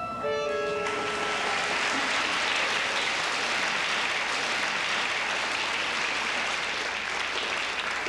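Theatre audience applauding steadily. The last held notes of the music fade out under the applause within the first second or two.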